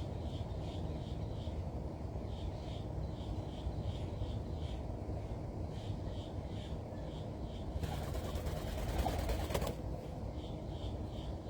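Birds at a feeding spot: a small bird repeats a high chirp about three times a second over a steady low rumble. Near the end there is a flurry of wingbeats lasting about two seconds, typical of a pigeon or dove taking off.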